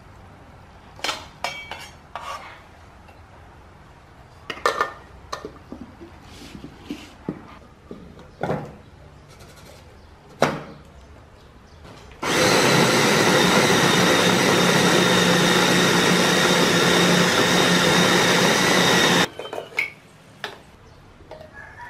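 Electric food chopper with a glass bowl running for about seven seconds, mincing raw pork: a loud, steady motor noise that starts and stops abruptly. Before it come scattered knocks and clinks as the pork goes into the glass bowl and the chopper is put together.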